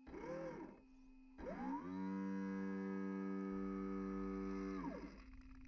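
A horn- or siren-like electronic tone over a steady hum. First comes a short whoop that rises and falls in pitch; then a long tone glides up, holds for about three seconds and glides back down.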